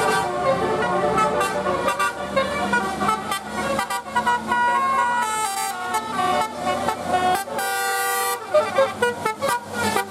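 A bus's 'telolet' musical horn playing a tune. Its stacked horn tones jump quickly from note to note, several notes a second.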